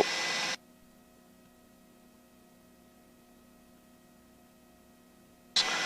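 Police radio channel hiss that cuts off abruptly about half a second in as a transmission ends, leaving near silence with a faint steady hum; the hiss comes back suddenly near the end as the next transmission opens.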